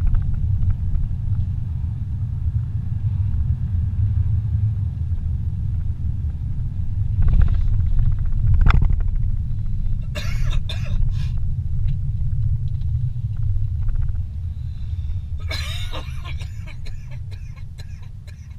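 Low road and engine rumble inside a moving car's cabin, easing off near the end as the car slows. A sharp knock about nine seconds in, and short clusters of brief noises about ten seconds in and again a few seconds before the end.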